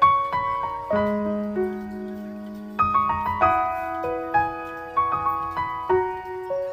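Background piano music: a slow melody of single held notes over sustained bass notes, each note struck and fading.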